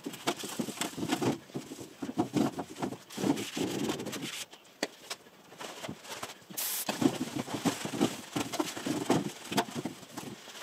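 Melamine foam sponge (magic eraser) scrubbing an aluminium surface clean of grime, in irregular rubbing strokes with small knocks and scrapes.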